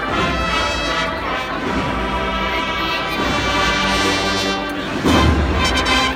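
Brass band of the Spanish agrupación musical type, with cornets, brass and drums, playing a Holy Week processional march in sustained brass chords. Heavier drum strokes come in about five seconds in.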